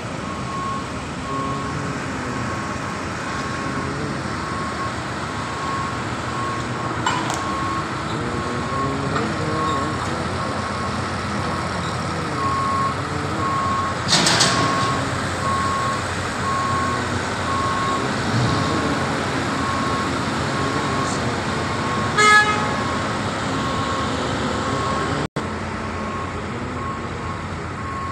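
A vehicle's reversing alarm beeps steadily over the running of a vehicle engine. There is a brief hiss about 14 seconds in and a short horn toot about 22 seconds in.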